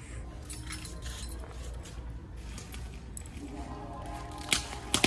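Light clicking and scraping as a pocket knife is worked at a fastener in place of a key, with two sharp clicks near the end.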